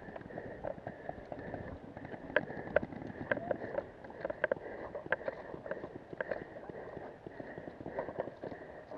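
Footsteps on dry grass, with the player's gear and paintball marker knocking and rattling in an irregular string of sharp clicks.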